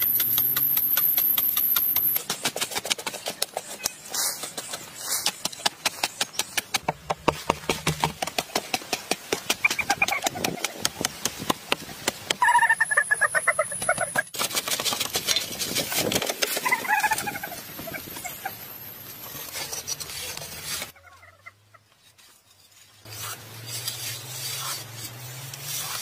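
Hand tools chipping and scraping into packed earth in a fast run of strikes, with a brief lull about three-quarters of the way through. Chickens cluck several times over the work.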